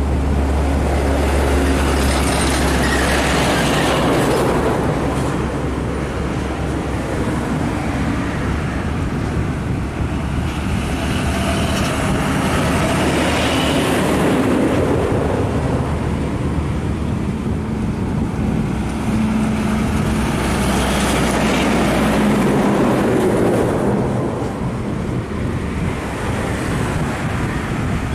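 Heavy diesel trucks, a UD Trucks lorry and a fuel tanker among them, driving past one after another: engine and tyre noise swelling and fading with each pass, with a deep engine drone as the first truck goes by.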